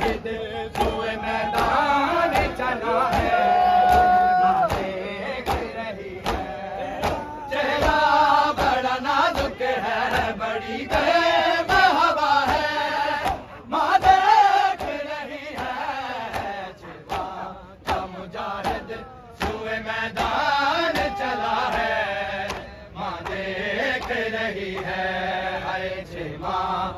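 Men chanting an Urdu noha (Shia lament) in a large crowd, amplified through a portable loudspeaker, over a steady beat of hands striking chests (matam).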